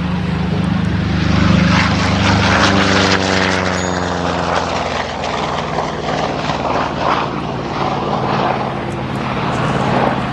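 Republic P-47 Thunderbolt's Pratt & Whitney R-2800 Double Wasp radial engine in flight, passing close by: loudest a couple of seconds in, then its pitch drops as the fighter passes and draws away.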